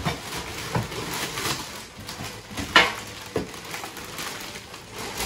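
Purchases and their packaging being handled while being unpacked: a series of short rustling and knocking noises, the loudest a little under three seconds in.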